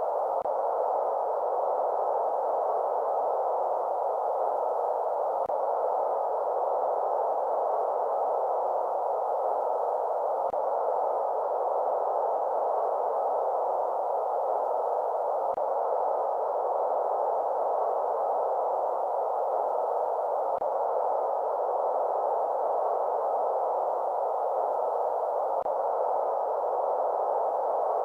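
Steady white noise for lulling a baby to sleep, filtered to an even midrange hiss with no change in level. A faint tick recurs about every five seconds.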